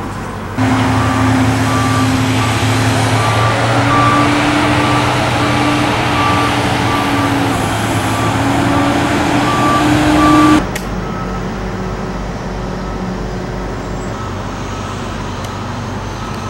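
Tractor-trailer's diesel engine running loudly as the truck passes close by on the road, its pitch creeping slowly upward, with a high beep repeating at a steady pace. Both cut off abruptly about ten seconds in, and a quieter engine hum with fainter beeping carries on.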